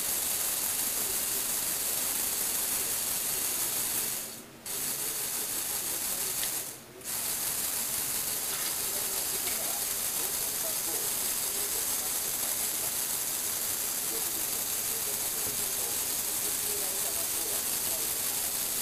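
Lego Technic electric motor and plastic gear train running steadily, turning and tilting a turntable platform. The sound stops briefly twice, about four and a half and seven seconds in.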